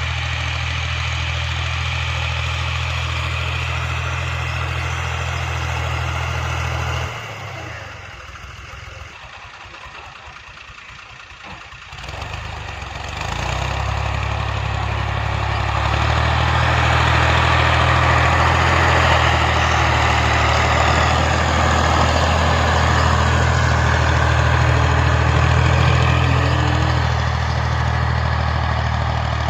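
Tractor engine running steadily with a low hum. It drops away for several seconds about a quarter of the way in, then returns and runs louder.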